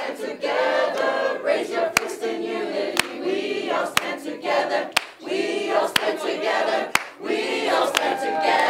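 A mixed group of voices singing a protest chant a cappella, with a sharp hit about once a second keeping time.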